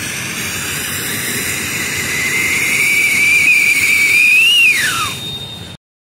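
Coronation 'electric siren' firework fountain: a steady siren whistle over the rushing hiss of the spark jet. The whistle climbs slightly, then swoops sharply down in pitch and dies away a little before five seconds in, and the hiss cuts off abruptly near the end.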